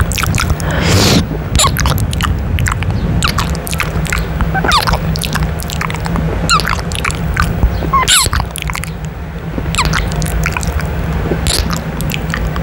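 Close-up ASMR kissing sounds made with the lips pressed directly on a microphone's mesh grille: irregular wet lip smacks and clicks, over a steady low rumble from the mouth against the grille.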